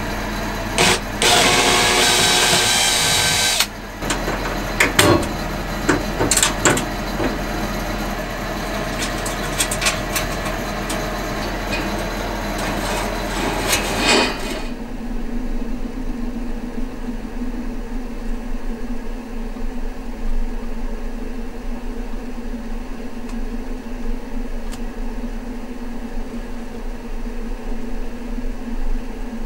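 A cordless drill running briefly near the start, then knocks and clatter of hand work on metal fittings. About halfway through this gives way to a steady low hum.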